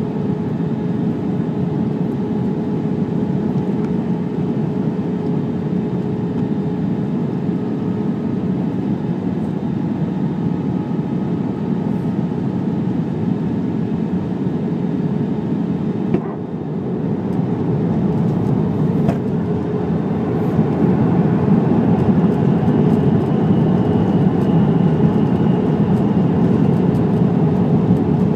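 Cabin noise of an Airbus A320-214 on approach: a steady roar of its CFM56 turbofan engines and airflow, with a steady hum under it. It dips briefly about two-thirds through, then grows louder and stays louder near the end.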